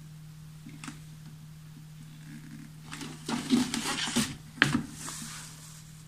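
Handling noises of a plastic lid and a hot glue gun: a light click about a second in, then scraping and knocking of plastic from about three seconds in, with a sharp click near the end. A steady low hum lies underneath.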